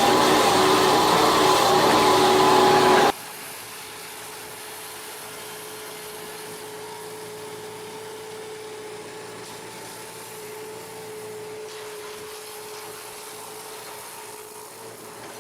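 Loud machine motor running with a steady whine, which cuts off abruptly about three seconds in and gives way to a much quieter, steady engine hum.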